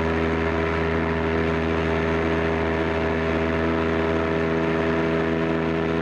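SS Southern Cross's whistle sounding one long, steady, deep blast.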